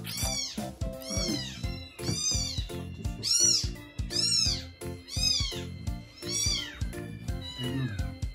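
A young bottle-fed kitten meowing loudly and repeatedly, about eight high cries roughly once a second, each rising then falling in pitch. Background music plays underneath.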